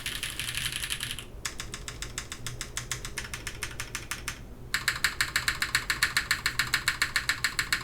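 Mechanical keyboard typing test on an O-ring-mounted Krush65 with an aluminium plate and Milky Raccoon switches. Dense typing at first, then fast, even runs of keystrokes. After a short pause, a louder run follows at about six strokes a second.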